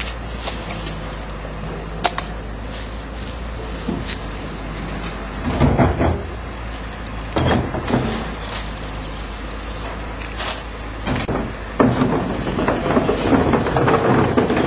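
Household waste being sorted by hand into wire baskets: plastic bags and items rustling, clattering and clunking against the wire, with a few louder clunks in the middle and denser rustling near the end.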